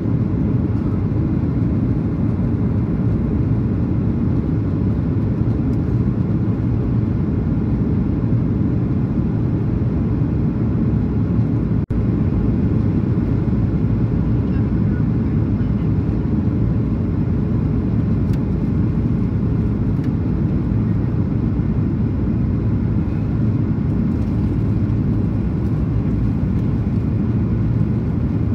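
Steady cabin noise inside a Boeing 737-800 in flight: engine and airflow noise, deepest and strongest in the low range, with a momentary break about twelve seconds in.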